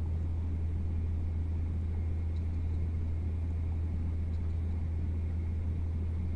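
Steady low hum with a faint hiss, and two faint ticks near the middle.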